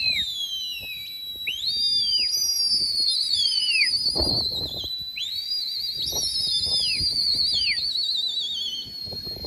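Shrill whistling, as pigeon flyers do to work their flocks: several whistles overlap, each swooping up to a high held note and gliding down, some with a fast warbling trill. A brief low rush is heard about four seconds in.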